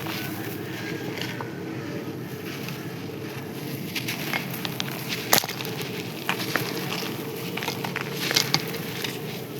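Dry, crispy sand-and-clay pieces crunching and crumbling: scattered sharp crackles and snaps, the loudest a single crack about five and a half seconds in and a cluster near the end, over a steady low background rush.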